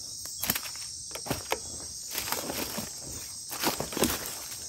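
Footsteps crunching irregularly over dry leaf litter on the forest floor, over a steady, high-pitched chorus of night insects.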